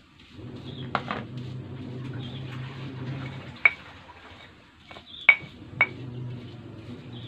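Stone pestle grinding and scraping grated coconut and spices in a stone mortar (cobek and ulekan). Several sharp clicks of stone striking stone: about a second in, near 3.5 seconds, and twice close together past 5 seconds.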